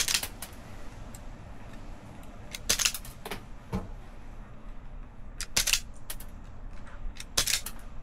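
Automatic wire stripper squeezed again and again, each squeeze a quick cluster of sharp snapping clicks as the jaws grip and pull the insulation off a wire, one strip every second or two.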